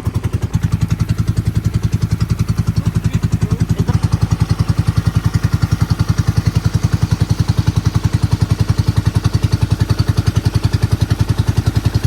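A boat's engine running steadily at speed, with a rapid, even chugging pulse.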